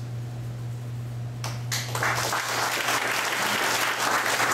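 Audience applauding, beginning about a second and a half in and then continuing steadily.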